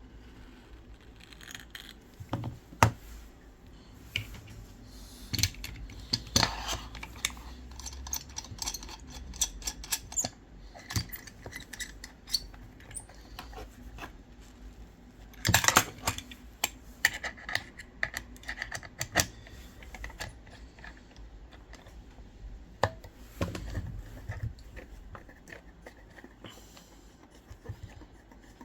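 Small hand tools clicking, tapping and scraping on a phone's frame and screen as the display is pried loose from its adhesive. The taps come irregularly, with one sharp click a few seconds in and a quick cluster of louder clicks around the middle.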